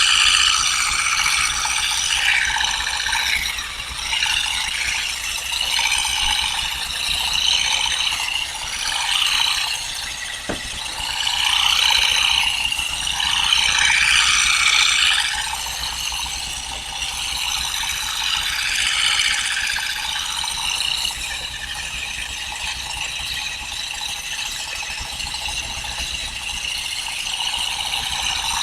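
Olives being hand-stripped from a tree: continuous rattling and rustling of olives and twigs.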